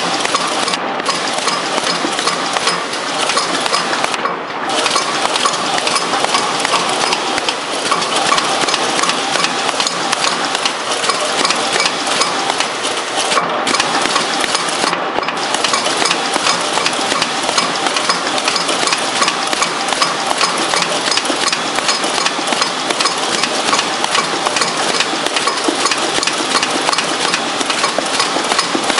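Automatic agarbatti (incense stick) making machine running, giving a steady, dense metallic clatter of rapid clicks.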